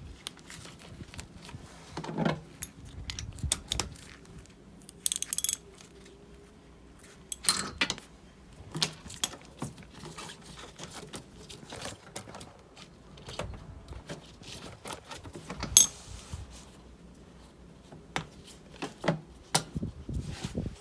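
Irregular metallic clinks and knocks, some with a brief ring: tools and small metal parts being handled during work on a scooter.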